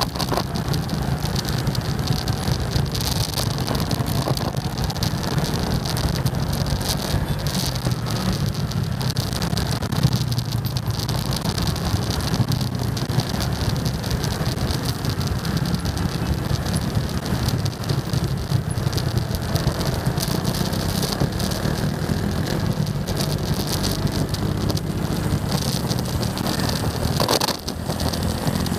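Motorcycle riding in city traffic: a steady engine hum under a continuous rush of wind and road noise, with surrounding scooters and cars.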